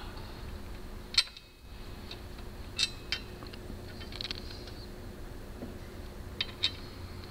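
A handful of light metallic clicks and taps from a screw being started by hand into a steel crash bar's cross support, the sharpest about a second in, over a steady low hum.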